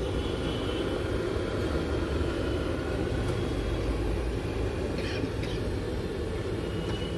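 Steady low rumble of street traffic, with a couple of faint clicks about five seconds in.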